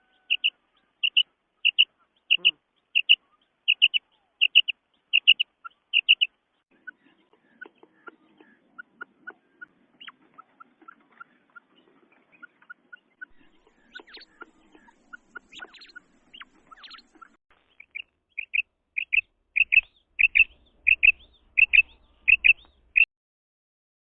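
Female quail calling: a series of short, high, evenly spaced notes, about one and a half a second. After about six seconds they give way to softer, lower notes and faint ticks, and the loud series returns from about eighteen seconds until shortly before the end.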